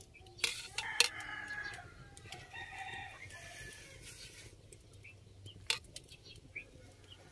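A rooster crowing for about two seconds, starting about a second in, among a few sharp clicks of a metal ladle knocking against an aluminium pot as it skims.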